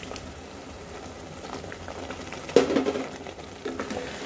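Thick chickpea curry bubbling on the boil in an open pressure cooker, with a sudden loud knock a little past halfway and wooden-spoon stirring sounds near the end.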